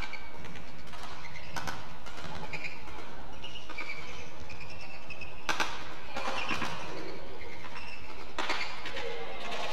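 Badminton doubles rally: sharp cracks of rackets striking the shuttlecock and short squeaks of shoes on the court mat, over a steady hall background.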